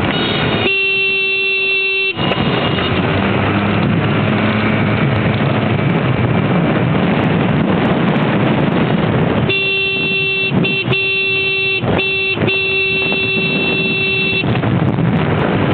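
A single-pitch vehicle horn sounding: one blast of about a second and a half near the start, then a run of several honks about ten seconds in, lasting about five seconds with short gaps between them. Underneath, steady engine and wind rush from riding a motor scooter.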